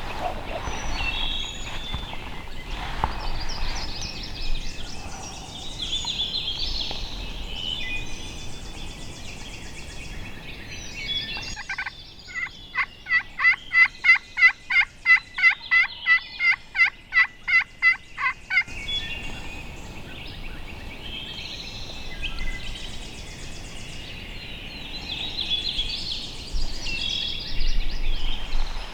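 Turkey yelping: a loud run of about twenty sharp, evenly spaced notes, roughly three a second, through the middle, with songbirds calling before and after.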